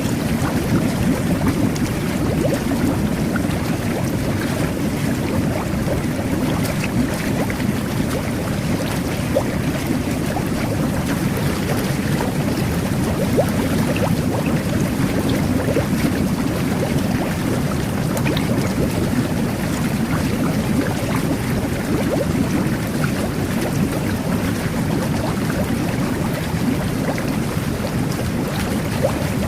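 Jet bath churning the bathwater: a steady bubbling rush with scattered small pops.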